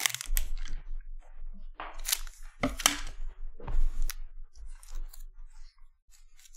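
Foil wrapper of a trading-card hobby pack crinkling as it is handled, with about half a dozen sharp crackles spread through.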